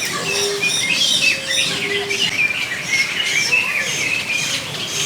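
Many birds chirping and calling at once: a busy chorus of short, overlapping high chirps and whistles.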